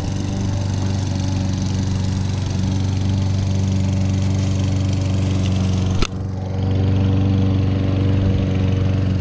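Petrol lawn mower engine running steadily. A single sharp click comes about six seconds in.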